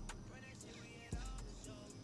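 Background hip-hop beat playing quietly: a deep bass note comes in about a second in, under steady ticking hi-hats and a short synth melody.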